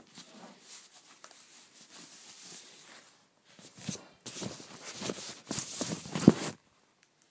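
Rustling and scraping of packaging being handled as a laptop is unboxed: soft at first, then a run of louder crinkles and scrapes in the second half with one sharp knock near the end.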